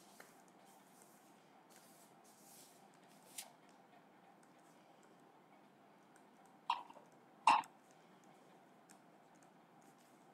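Quiet room tone with a steady faint hiss, broken by a few brief soft sounds. The two loudest come close together about seven seconds in.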